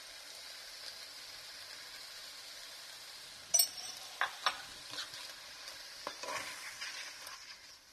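Shredded chicken and sliced mushrooms sizzling steadily in a frying pan on high heat. About three and a half seconds in there is a sharp clink, then a spoon scrapes through the food several times as it is stirred.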